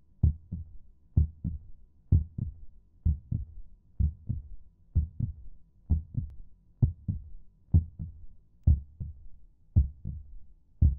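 Heartbeat sound effect: slow, paired low thumps (lub-dub), about one beat a second.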